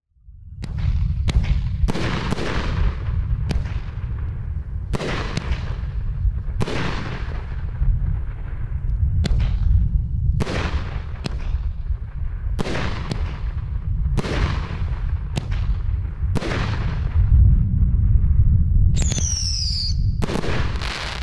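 500-gram repeater firework cake firing: a long run of sharp bangs from the shells lifting and breaking, over a constant low rumble. Near the end come shrill whistles falling in pitch, the cake's whistling finale.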